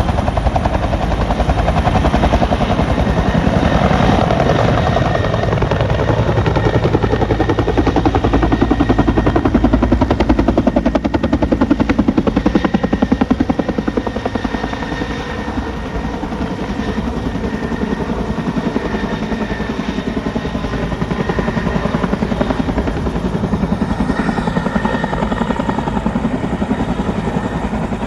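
Firefighting helicopter lifting off, its rotor blades beating in a rapid steady chop over the engine's low rumble. It grows a little quieter about halfway through.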